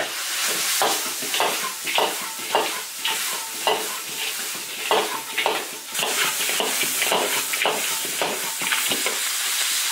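Duck pieces stir-frying in a large iron wok: a steady sizzle, with the metal ladle scraping and knocking against the wok about twice a second as the food is tossed.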